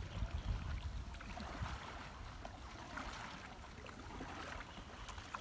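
Quiet water sounds of kayaks being paddled: paddle blades dipping and water trickling and lapping, with low wind rumble on the microphone.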